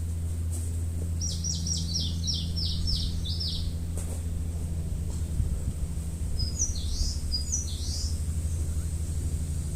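A songbird singing two phrases of quick, high, falling notes, about eight notes in the first phrase and a shorter second phrase a few seconds later, over a steady low rumble.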